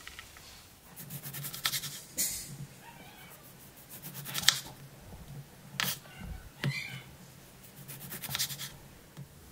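Kitchen knife cutting limes in half on a bamboo cutting board: a series of quick slicing strokes, each ending in a sharp knock of the blade on the board, a second or two apart.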